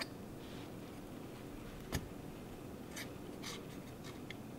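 Faint clicks and light scratching of hands working a small metal apex seal into its slot on the rotor of a Sachs KM24 Wankel engine, with a sharper click about two seconds in.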